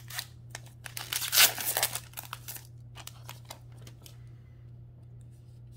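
Foil wrapper of a Magic: The Gathering Modern Horizons 2 collector booster pack being torn open and crinkled, with a loud crinkling rush about a second in, then a few lighter crackles and clicks that fade out past the halfway point.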